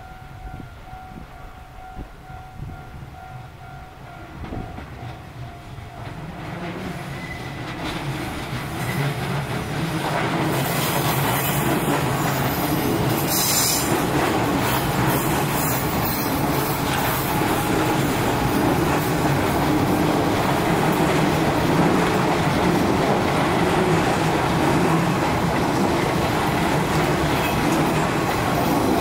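Nishitetsu 5000 series electric train approaching and passing close by, its sound building from about a fifth of the way in and staying loud once the cars are alongside. The wheels rumble and clack over the rails, with some high squealing on the curve.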